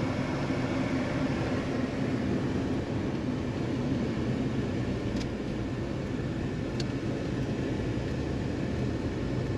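Vehicle driving on the road: steady engine and road noise, with two faint ticks in the middle.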